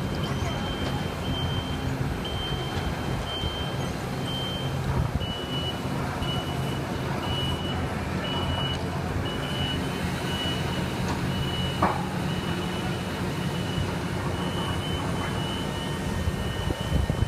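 Heavy construction machinery's diesel engine running steadily, with a backup alarm beeping about once a second as the machine reverses.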